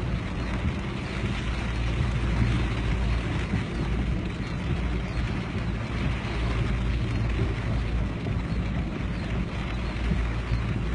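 Heavy rain and floodwater rushing down a road: a steady, dense noise with a strong low rumble.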